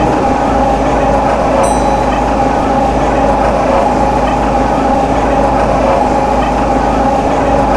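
MTR M-Train electric multiple unit running between stations, heard from inside: a steady rumble of wheels on rail with a steady hum. A brief faint high ping sounds about two seconds in.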